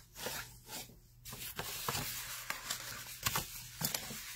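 Bone folder rubbing along score lines on patterned paper, a dry scraping of paper with a few light taps, starting about a second in.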